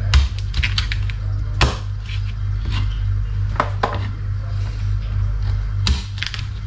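Chef's knife slicing through crispy deep-fried pork belly (lechon kawali) on a wooden cutting board: the skin crackles and crunches and the blade knocks on the board in a few sharp strokes, roughly every two seconds, over a steady low hum.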